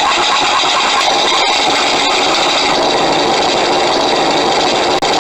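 Engine sound from a model Lancaster's onboard sound module, played through two small wing-mounted speakers: a steady, loud multi-engine piston aero engine running, with a brief dropout near the end.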